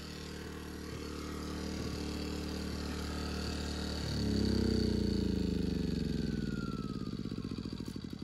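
Firman 2100-watt inverter generator's small gas engine running steadily, its tank nearly out of gas. About four seconds in, as it is shut off at the control panel, the engine note changes and it winds down with slowing pulses and falling pitch.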